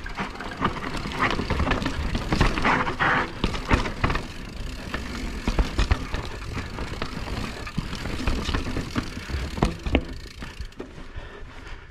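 Mountain bike ridden over a rough trail, the bike rattling and clattering with many sharp knocks as it hits the bumps.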